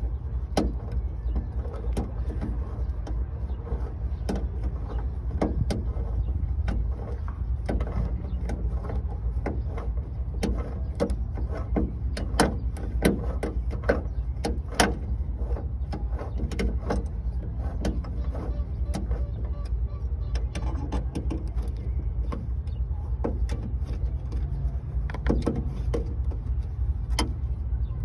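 Irregular metallic clicks and ticks of a hand wrench working the bolts on a car's hood hinge, over a steady low rumble.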